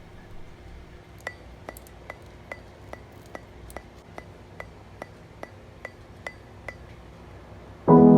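A steady run of light clinking ticks, each with a short high ring, about two and a half a second for several seconds. A loud piano chord comes in near the end.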